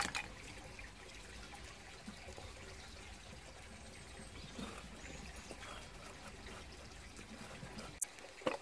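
A few light knocks and taps as tools and a wooden spoon blank are handled on a wooden chopping stump, over a faint steady background hiss, with a sharp click near the end.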